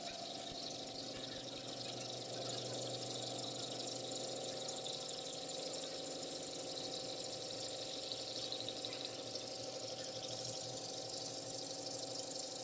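CNC pipe-drilling machine running steadily: a constant whine with an even hiss over it, getting slightly louder about two seconds in.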